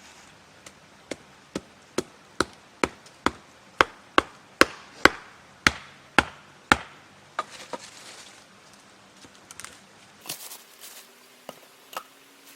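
Chopping wood: a steady run of about fifteen sharp strikes, a little over two a second, that grow louder toward the middle and stop about two-thirds of the way through. A few scattered, lighter knocks follow.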